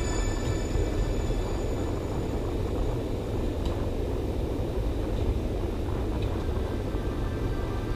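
Steady low rumble of background noise in a large indoor soccer hall, with a few faint knocks from the game in play.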